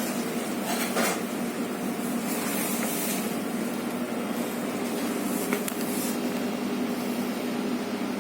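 Steady hum and hiss of a sandwich shop's ventilation, with a few soft handling clicks about a second in and again near the middle.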